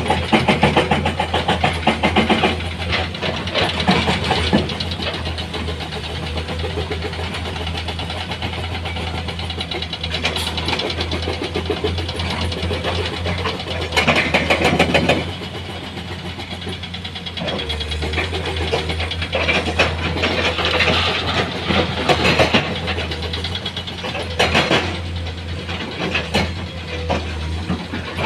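Diesel engine of heavy earth-moving equipment running steadily, with louder clattering stretches near the start, about halfway through and again later.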